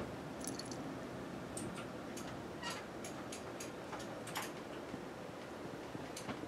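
Steady rain falling outside an open window during a night thunderstorm, with irregular sharp ticks scattered through it.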